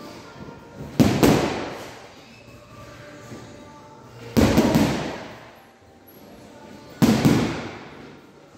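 Boxing gloves striking a hanging heavy punching bag in three quick flurries of two or three punches, about three seconds apart, each thud echoing in a large hall.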